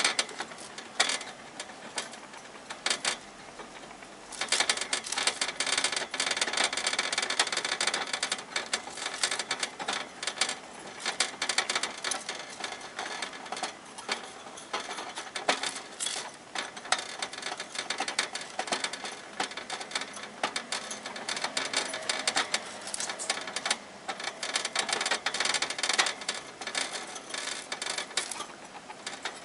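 Hamster gnawing and clawing at wire cage bars: rapid metallic clicking and rattling in runs with short pauses.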